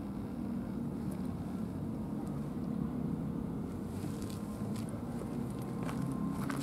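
Steady low outdoor background rumble. From about four seconds in come faint sharp clicks and crackles: a cat starting to crunch food.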